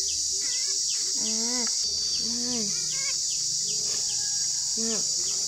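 Steady high-pitched drone of insects. Several short calls that rise and fall in pitch come over it.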